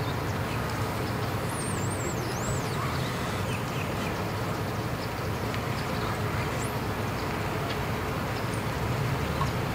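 An engine idling with a steady low hum. A few high, warbling bird chirps come in about two seconds in and again briefly later.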